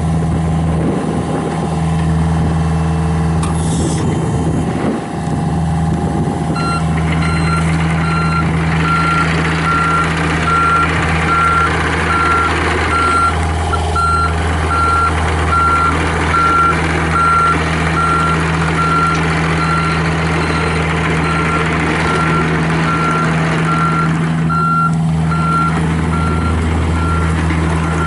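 John Deere 50G mini excavator's diesel engine running steadily. About seven seconds in, its travel alarm starts a steady single-tone beeping, about one and a half beeps a second, and more machine noise joins it as the excavator moves.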